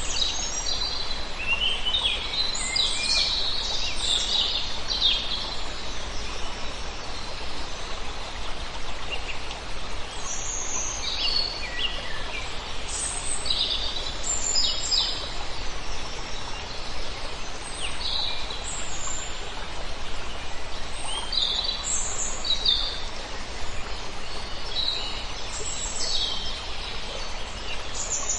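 Small songbirds chirping and trilling in scattered bursts over a steady rush of flowing water.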